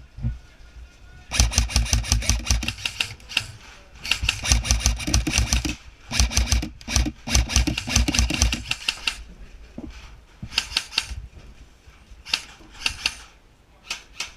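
Airsoft rifles firing rapid full-auto bursts, a fast clatter of shots in several long strings, then shorter, sparser bursts toward the end.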